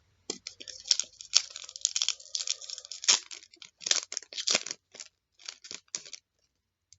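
Trading-card foil pack being torn open and cards handled: a run of irregular crinkles and rustles that stops about six seconds in.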